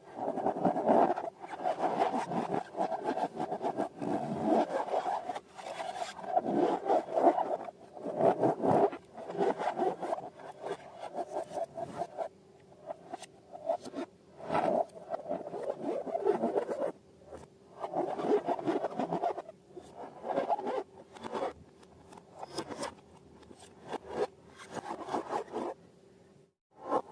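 Rubber balloons being handled and squeezed, rubbing and scraping in uneven bursts with short pauses between them.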